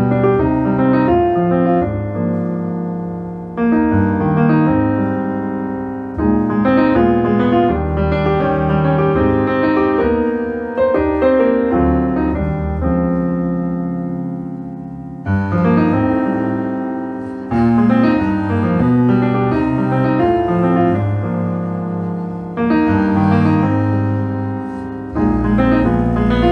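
Solo piano music played back through hi-fi floor-standing loudspeakers. Chords and notes are struck and left to ring and fade, in slow phrases.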